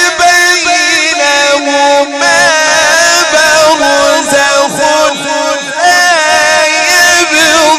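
A man's voice reciting the Quran in melodic tajweed style, drawing out long ornamented notes that glide and waver up and down, broken by a few short pauses.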